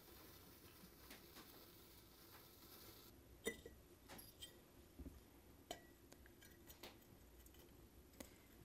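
Faint clinks of a glass lamp chimney being handled and set onto an oil lamp, a handful of light taps scattered over several seconds against near-silent room tone.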